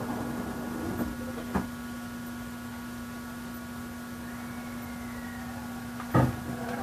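Inside a JR East E353 series electric train's motor car standing at the platform: a steady electrical hum from the car's equipment. A sharp knock comes about a second and a half in and a louder thump near the end, just as the train is due to pull out.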